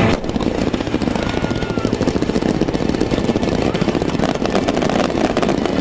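Wide starmine fireworks barrage: many shells and low-fired mines bursting in rapid succession, the reports running together into a steady, dense crackling rumble.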